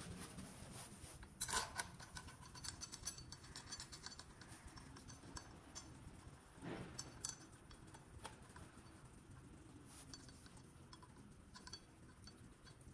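Faint scattered clicks and small metallic clinks of gloved hands handling parts at the timing end of a BMW N46 engine, with light rustling. The loudest click comes about one and a half seconds in, and another comes about six and a half seconds in.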